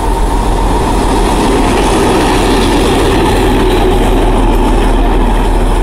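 Soviet M62 diesel locomotive running light past at close range: the steady, loud drone of its two-stroke V12 diesel engine together with the running noise of the wheels.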